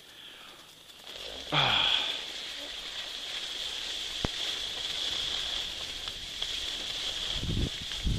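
Skis sliding and scraping over packed snow as the skier picks up speed, with wind rushing over the camera microphone. The rush grows louder about a second and a half in, and a couple of dull buffets of wind on the microphone come near the end.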